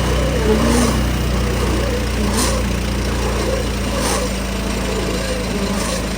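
Tractor engine running steadily, with a short click repeating about every second and a half to two seconds.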